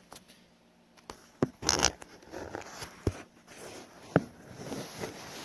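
Handling noises from an old Amana dehumidifier: scattered clicks and knocks, a brief scraping rattle just under two seconds in, a sharp knock about four seconds in, then a run of rustling and small knocks.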